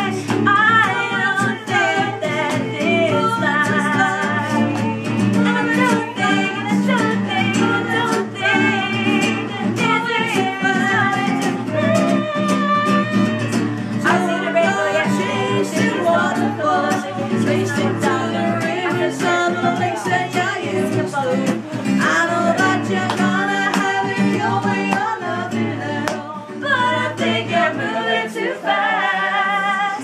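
Acoustic guitar strummed with a woman and a man singing along.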